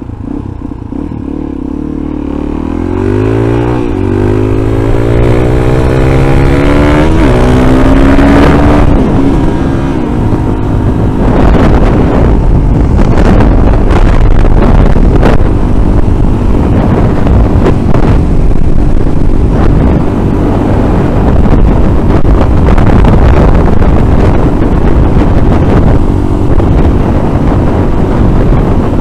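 Single-cylinder supermoto motorcycle engine accelerating hard up through the gears, its pitch climbing and dropping back at each upshift. From about ten seconds in it holds a steady speed under loud wind rush on the helmet microphone.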